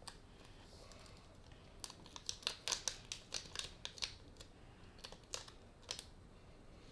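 Light crinkling and tapping of a small powder sachet being shaken and squeezed over a bowl: a run of quick, sharp clicks and crackles from about two seconds in until about six seconds in.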